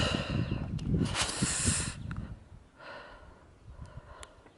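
A person breathing hard close to the microphone, with rumbling noise, for about two seconds; then it drops to faint sounds and a few sharp clicks.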